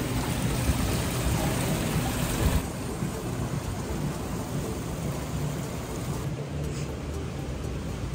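Water running and splashing over stones in a shallow ornamental channel, a steady rush. A little over two seconds in it drops to a softer, quieter bubbling from the fountain jets of a koi pond.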